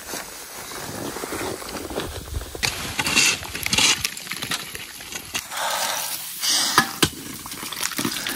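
Irregular clicks and short crunching scrapes of climbing gear being handled on snow, as snowshoes are swapped for crampons.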